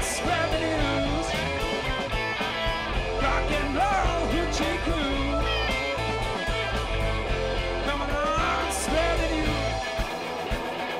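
Live blues-rock band playing: electric guitars, bass guitar and drums under an amplified harmonica lead with bending notes. Cymbal crashes near the start and again about nine seconds in.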